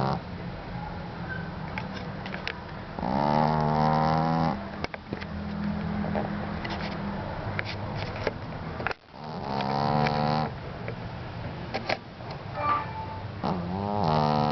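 A sleeping pet snoring: loud, drawn-out pitched snores about every five seconds, with a quieter low drone between them.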